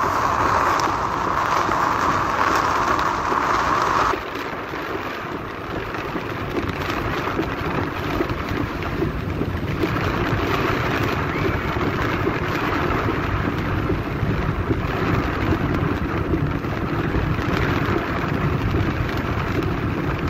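Steady noise of a car driving through a hailstorm, heard from inside the cabin: precipitation beating on the car body mixed with tyre noise on the wet, hail-covered road. About four seconds in the noise drops a little and loses some of its brightness, then stays steady.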